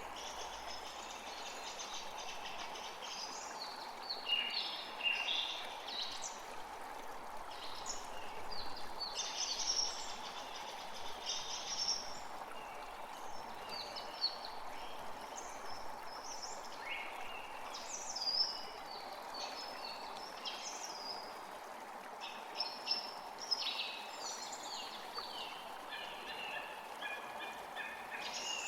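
Several songbirds singing, with short chirps and warbles coming and going, over the steady rush of a flowing creek.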